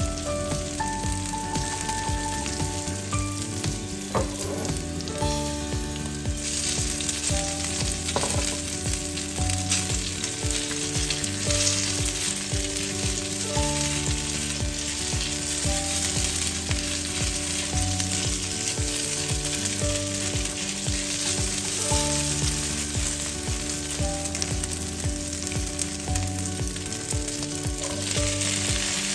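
Onion, ginger and crabstick pieces sizzling in hot oil in a stainless-steel wok while being stirred with a spatula. The sizzle grows louder about six seconds in, and near the end it dulls as a load of cut green beans is tipped into the pan.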